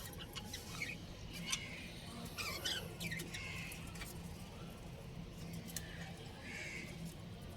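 Budgies chirping: scattered short, high chirps and squeaks, with a few light clicks and a faint steady hum underneath.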